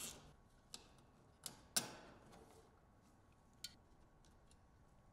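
About five faint, scattered clicks and taps of a hand tool with a T30 Torx socket and loose metal parts as the battery bracket fasteners are taken out; the loudest comes a little under two seconds in.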